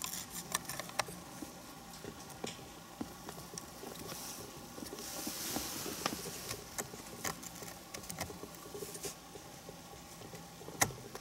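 Faint small clicks, taps and rubbing from fingers working a dual-USB voltmeter charger module into a car's cigar lighter socket and plastic trim ring, with a sharper click near the end.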